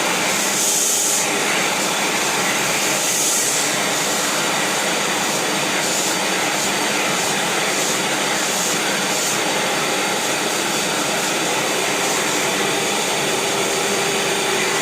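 Vacuum cleaner running steadily, a constant rushing noise with a faint steady whine coming in near the end.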